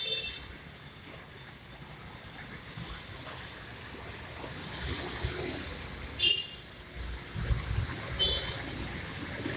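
Traffic jam on a busy street: a steady din of vehicle engines, with short horn toots about six seconds in and again near the end, and a heavier engine rumble around seven to eight seconds.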